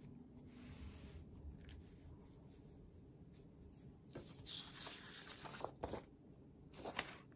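Sheets of patterned scrapbook paper rustling and sliding under the hands, faint at first, then louder crinkles and crackles from about four seconds in as a sheet is picked up and turned.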